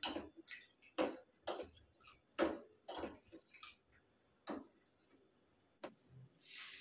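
Steel ladle clinking and scraping against a stainless steel pan while sago in milk is stirred, a string of irregular knocks about every half second that thin out after about three seconds. A brief rustle near the end.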